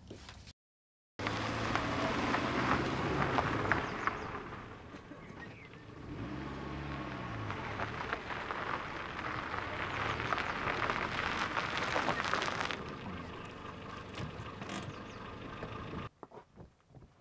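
Renault Clio driving hard on loose gravel, its tyres scrabbling and spraying gravel, with the engine revving up and back down about six seconds in. The sound cuts in about a second in and dies away near the end.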